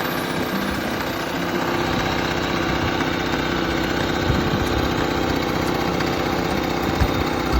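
Small engine of a walk-behind tiller running at a steady speed, with wind buffeting the microphone in low, uneven rumbles.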